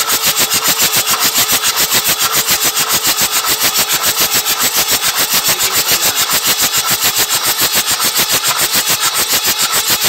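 Kirloskar 4R-1040 four-cylinder diesel engine turned over on its electric starter without firing, a steady rhythmic chugging of about five beats a second. It is being cranked to force water out of the flooded cylinders.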